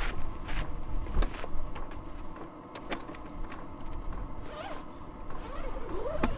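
Zipper on a rooftop tent being pulled, with footsteps and the knocks and clicks of someone climbing a telescoping aluminium ladder. A few short wavering squeaks near the end.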